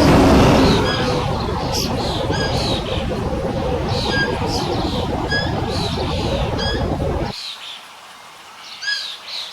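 A songbird repeating short, falling chirps every half second to a second, over a loud, dense low rumbling noise that cuts off suddenly about seven seconds in, leaving the chirps alone.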